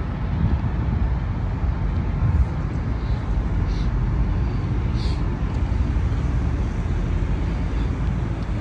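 Steady low outdoor rumble, with two brief high-pitched sounds about four and five seconds in.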